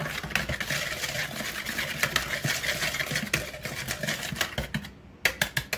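Wire whisk beating olive oil and seasonings in a plastic mixing bowl: rapid scratchy clicking of the wires against the bowl. It pauses briefly near the end, then comes a quick run of sharp clicks.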